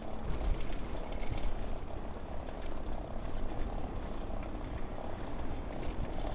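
Bicycle rolling over a brick-paved street: a steady rumble of tyres and frame with small rattles, mixed with wind noise on the microphone.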